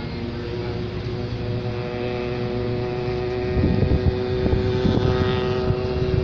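A steady engine drone at an unchanging pitch, with louder uneven low rumbling over it from a little past halfway through.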